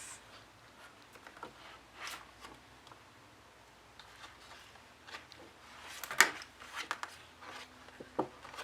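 Plastic album packaging crinkling and rustling as it is handled, with scattered small clicks and taps; the loudest crackle comes about six seconds in.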